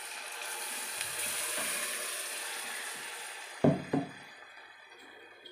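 Sautéed onions and tomatoes sizzling in a pressure-cooker pan, the sizzle dying away as the ground rice batter is poured over them. Two quick knocks a little past halfway.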